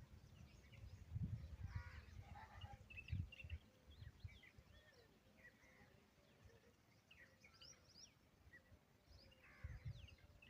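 Faint chirping of birds in the background: many short, high chirps and quick sweeps, with a few low thumps in between.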